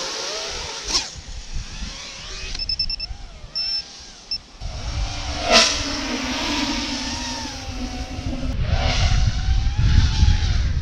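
FPV quadcopter motors and propellers whining, the pitch bending up and down with the throttle, with two quick fly-by swooshes about a second in and about five and a half seconds in. Wind rumble on the microphone in the second half.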